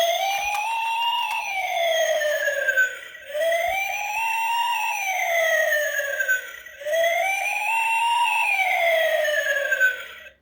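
Toy police car's electronic siren wailing, slowly rising and falling in pitch three times before cutting off near the end.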